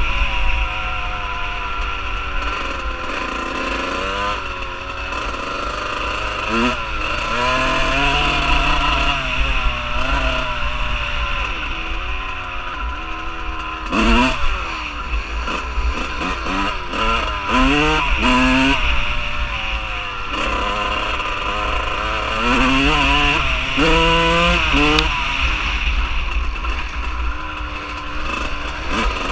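Dirt bike engine riding at speed, revving up and easing off again and again as the throttle is worked, its pitch climbing and falling in repeated sweeps.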